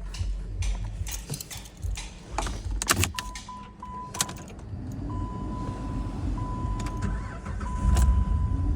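Jeep Liberty being started: keys jangle and click for the first few seconds, then a steady electronic warning tone sounds in long stretches with short breaks. A low rumble builds under it and is loudest near the end.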